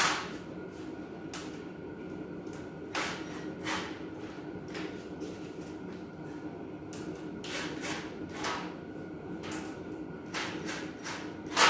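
Sheet-metal cabinet panels scraping and knocking as they are slid and pressed into place by hand, a dozen or so short scrapes and clacks, the loudest near the end. Underneath, the steady hum of a running shop heater.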